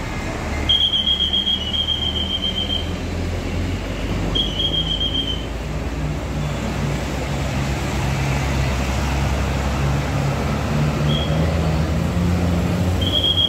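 Large diesel bus engine running close by, its pitch rising a little partway through as it pulls away. A single shrill high tone sounds over it four times: for about two seconds a second in, for a second around the middle, briefly later on, and again near the end.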